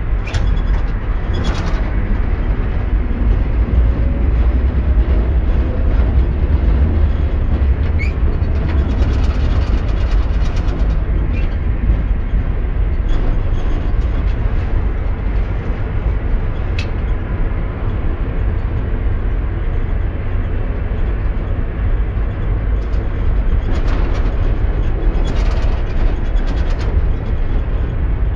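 Tram running along the track, heard from inside the vehicle: a steady low rumble of motors and wheels on rail, with occasional sharp clicks and short rattling stretches.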